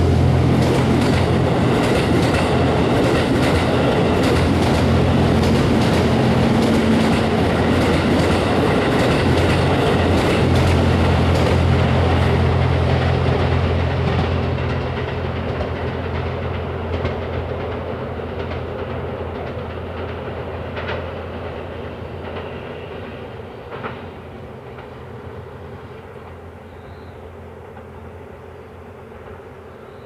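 JR West Series 87 Twilight Express Mizukaze diesel-electric train passing close by, with a steady low engine drone and wheels clacking over the rail joints. About thirteen seconds in, it starts fading steadily as the train draws away, with a few last clacks before it is faint.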